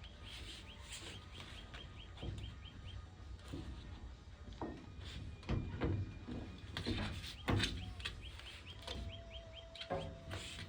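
A bird singing a fast run of short repeated chirps, heard twice, over scattered light knocks and handling noises from work on a van's window seal.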